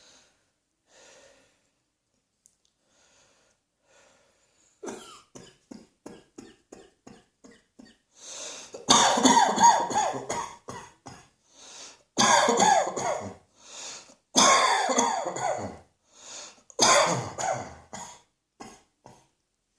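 A person coughing: faint breaths at first, then, about five seconds in, a run of short quick coughs, followed by four loud coughing fits of a second or two each with short pauses between them.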